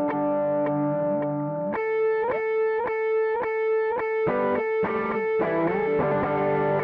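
Electric guitar played through a Zoom G5n multi-effects pedal: a sustained chord, then from about two seconds in a rhythmic run of evenly repeated notes around one held high note, with a few sliding notes, settling back into a sustained chord near the end.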